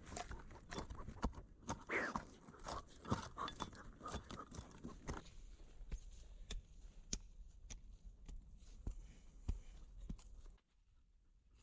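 Digging in loose soil: crunching and scraping of earth and clods, with many small irregular knocks, as a dog paws at the dirt and a small hand tool scrapes it. It is busiest in the first half and stops abruptly near the end.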